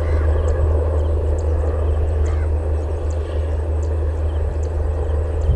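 Indian Railways WAP-7 electric locomotive running past with a steady low drone, with faint bird chirps.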